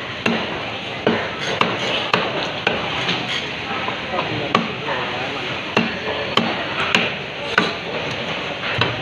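Knife and cleaver strokes on a thick round wooden chopping block as a sea eel is cut and filleted: about a dozen sharp, irregularly spaced knocks over a steady background din.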